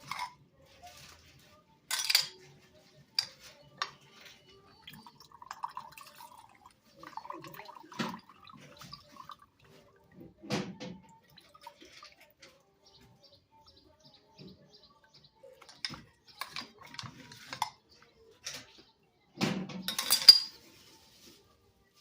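Kitchen clatter of dishes and utensils: scattered clinks and knocks as things are handled and set down, with the loudest clatter near the end.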